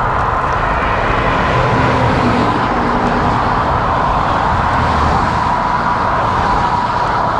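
Steady traffic noise from motor vehicles on the road alongside, heard from a moving bicycle, with headwind buffeting the microphone.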